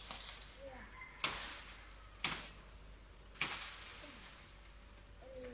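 A blade chopping into the crown of a coconut palm: three sharp chops about a second apart, each trailing off briefly.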